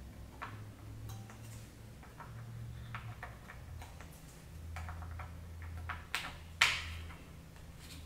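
Small scattered clicks and taps of a screwdriver and parts being handled inside an open laptop's chassis, with one sharper, louder click a little before the end.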